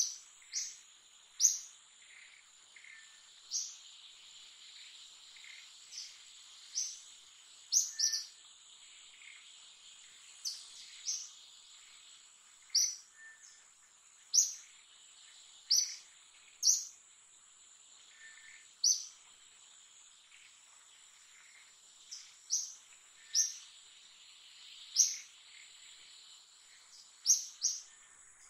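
Forest ambience: a steady high-pitched insect drone with short, sharp, high bird chirps repeating irregularly about once a second over it.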